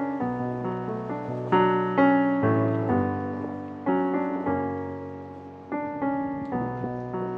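Background piano music: slow, soft chords and notes struck about once a second, each left to ring and fade.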